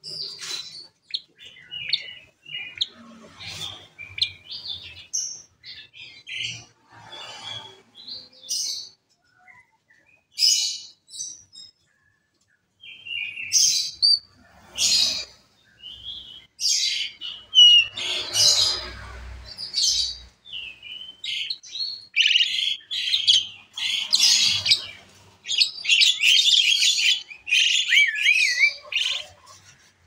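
Asian pied starling singing a long, varied run of short whistles, chatters and harsh notes, with a brief pause near the middle and faster, louder calling in the last third.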